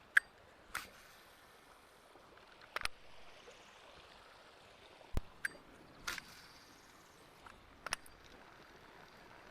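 Scattered sharp clicks and knocks, about seven spread irregularly over the span, above a faint steady hiss of running creek water.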